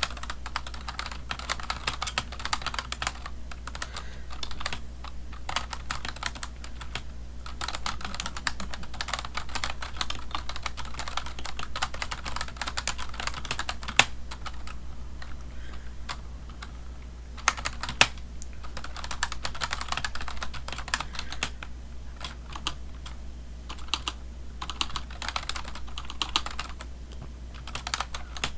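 Typing on a computer keyboard: rapid key clicks in flurries with short pauses, and a few louder single key strikes.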